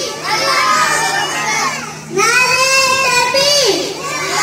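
A young girl singing into a handheld microphone in long, high phrases. Each phrase is held steady for over a second and drops in pitch at its end.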